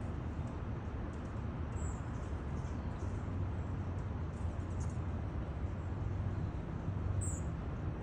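Steady outdoor background rumble, with two brief high-pitched chirps, one about two seconds in and one near the end.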